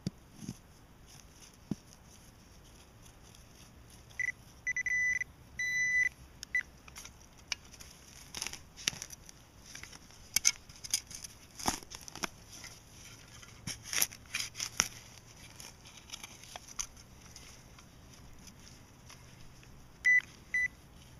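A metal detecting pinpointer beeping at a single high pitch, in short and longer pulses about four seconds in and twice more near the end, signalling metal in the soil. In between, crackling and scraping from a hand digger working through dirt.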